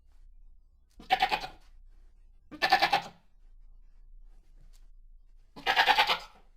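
Goat bleating three times, each a quavering bleat of about half a second; the first two come about a second and a half apart, the third after a longer pause.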